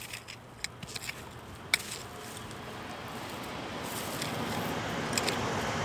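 A few sharp clicks and scrapes of a small hand hoe digging in dry soil for Chinese artichoke tubers. Under them a rushing noise swells steadily from about two seconds in.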